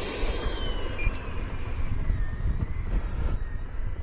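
80 mm electric ducted fan of an E-flite F-18 running with a thin whine that slowly falls in pitch, holds, then drops again near the end as the throttle is eased back. Wind rumble on the microphone runs underneath.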